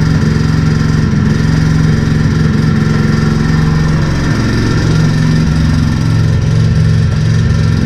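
Peugeot Speedfight 2's air-cooled 50cc two-stroke engine, fitted with a DR Evolution sport cylinder and Yasuni Z exhaust, running steadily just after its first start following a carburettor cleaning, with small rises and falls in speed.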